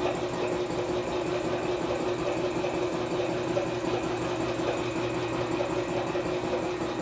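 A small motor running steadily, with an even hum and a fast, regular flutter.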